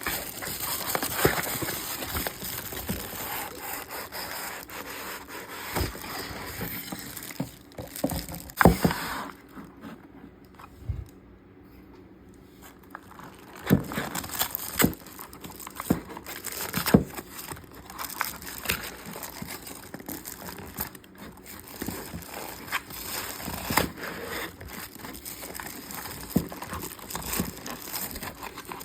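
Packaging being handled by hand during an unboxing: paper and cardboard rustling, rubbing and scraping, with scattered sharp taps and knocks and a short lull about ten seconds in.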